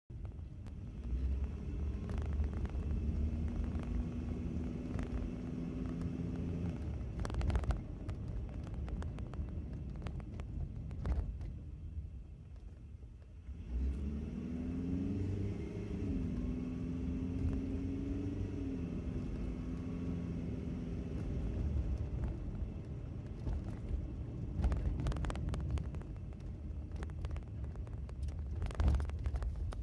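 Toyota 4A-GE twin-cam four-cylinder engine running with a steady low rumble and a humming drone. The hum fades out about twelve seconds in, returns with a short rise and fall in pitch, then carries on. The title calls it humming (гудит), as a noise worth recording.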